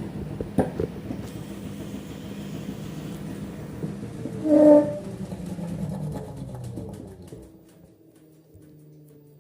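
LG F10B8MD washing machine running its final spin cycle: the drum turns with a steady hum, a clack about half a second in and a short, loud, ringing knock about four and a half seconds in. It winds down near the end to a low hum.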